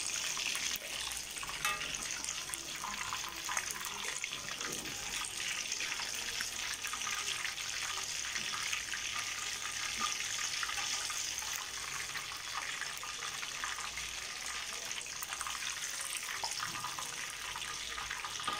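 Chicken pieces deep-frying in hot oil in a wok: a steady sizzling hiss with fine crackles.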